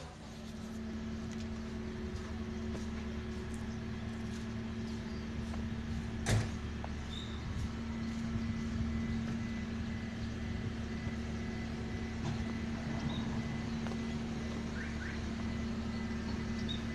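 A motor vehicle running steadily: an even engine hum with a held low tone, and one sharp knock about six seconds in.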